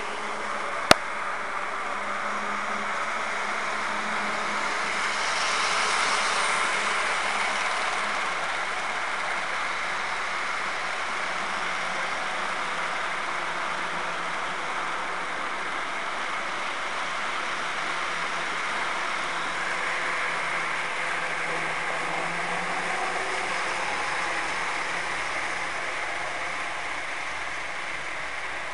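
Model train running on the layout track: a steady whir and rumble of the locomotive motor and wheels, swelling slightly about six seconds in. A single sharp click about a second in.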